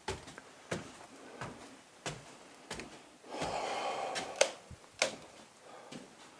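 Footsteps climbing stairs, a knock roughly every two-thirds of a second, with a second of rustling or scraping midway.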